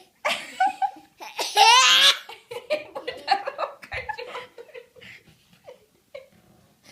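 Laughter in a quick run of bursts, loudest about two seconds in, then dying down to quieter scattered sounds.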